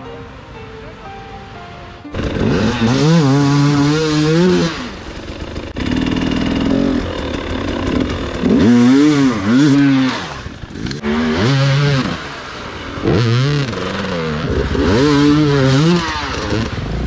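Dirt bike engines revving hard in about six repeated bursts, the pitch climbing and falling with each blip of the throttle. Music plays for the first two seconds, and the engines cut in suddenly after it.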